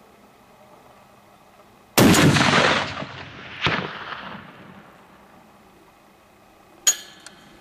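A single shot from a Barrett M82A1 .50 BMG rifle about two seconds in: a very loud blast that rolls and echoes for about a second, with a second, sharper crack about a second and a half later. A brief metallic clink near the end.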